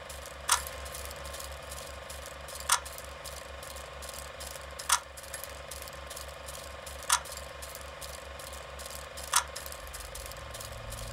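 Sound-design intro bed of rapid, even mechanical ticking like clockwork, with a sharp, much louder click about every two seconds (five in all), over a low pulsing hum and a steady mid-pitched tone.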